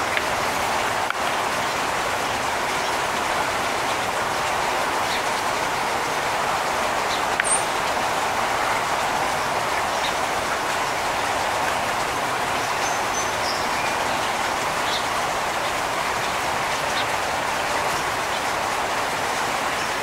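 A steady, even hiss, with a few faint, brief high bird chirps over it.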